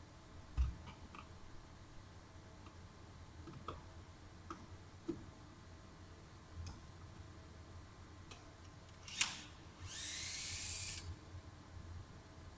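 Faint scattered clicks and light knocks of hand tools and plastic trim being worked, with a low thump near the start, a sharp click about nine seconds in and a short scraping hiss lasting about a second just after it.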